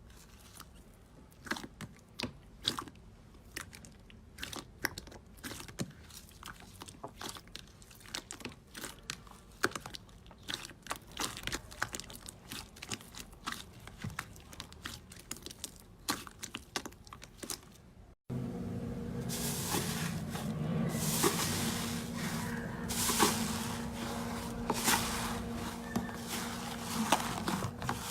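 Dry soap being cut, with many crisp crunching and crackling clicks. About two-thirds of the way through it switches to a louder take, with a low steady hum under the crunching.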